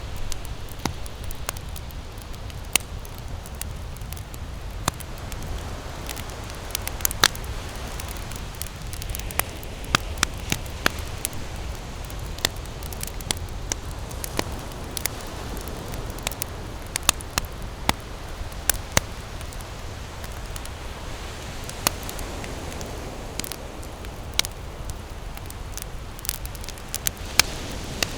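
Wood campfire burning and crackling, with sharp, irregular pops and snaps several times a second over a steady low rumble.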